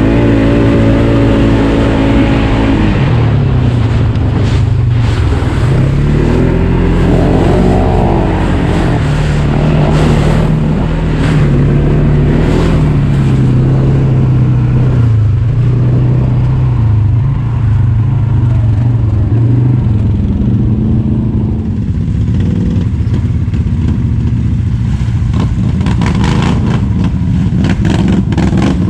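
Off-road vehicle engine running under load while mud riding, revving up and down repeatedly, with scattered sharp knocks.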